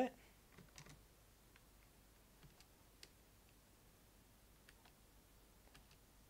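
Faint, scattered computer keyboard keystrokes, single clicks spaced out as a password is typed at a login prompt. A brief loud voice sound comes right at the start.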